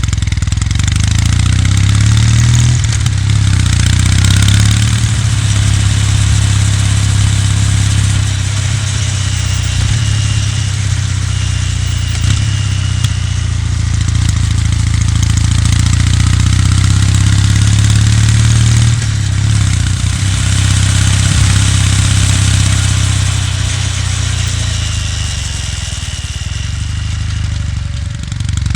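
Kawasaki W800's air-cooled parallel-twin engine and exhaust while riding, its note rising and falling a few times with throttle and gear changes, over steady wind and road noise.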